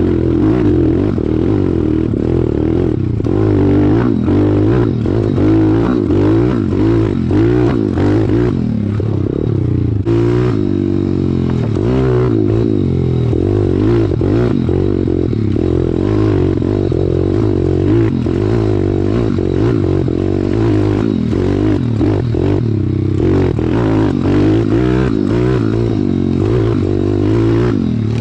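Small single-cylinder four-stroke pit bike engine revving up and down with the throttle while ridden over a rough, rocky dirt trail, with the bike's frame and parts clattering over the bumps.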